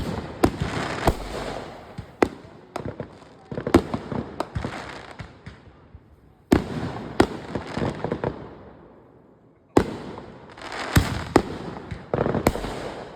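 Consumer fireworks going off: sharp bangs in four bursts, each trailed by crackling that dies away before the next.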